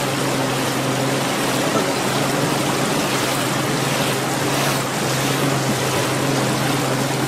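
Boat engine running steadily at low speed: a constant low hum under an even wash of water noise.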